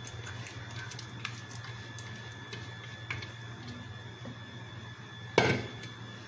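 A silicone spatula scraping thick blended marinade from a blender jug into a metal bowl, with a few faint taps and clicks, then one sharp knock about five and a half seconds in. A steady low hum runs underneath.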